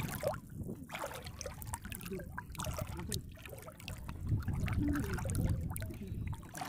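Muddy water sloshing and trickling softly around people wading and groping under the surface, with small scattered splashes.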